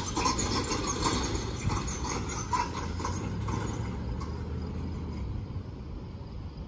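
Pickup truck pulling a loaded utility trailer away, its engine humming low while the trailer and its load clatter and rattle irregularly. The sound fades after about four seconds as the truck draws off.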